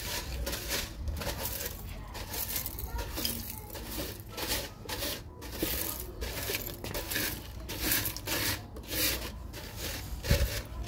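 A broom sweeping a hard balcony floor: a steady run of short brushing strokes, about one or two a second, with a knock about ten seconds in.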